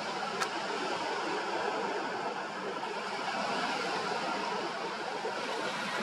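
Steady wash of small waves breaking on a sandy beach, with one short click about half a second in.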